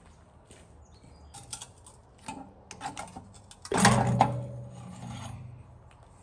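Metal parts and tools being handled during a rear differential teardown: light clicks and scrapes, then one loud clank a little past the middle that rings low for about a second and a half as it fades.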